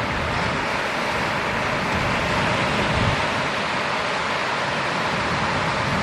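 Steady roar of ocean surf breaking, with a brief low rumble swelling about halfway through.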